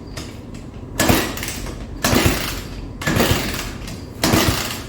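Four-wheeler's freshly rebuilt engine being kick-started, with four hard kicks about a second apart, each turning the engine over briefly without it catching.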